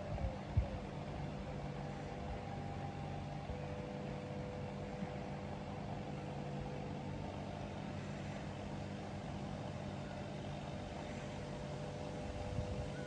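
Steady low mechanical hum with a faint, thin, steady whine above it; a single light knock about half a second in.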